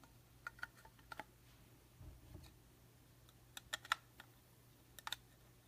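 Faint, scattered clicks and taps of plastic card holders being handled, in small clusters of two or three, with a soft low thud about two seconds in.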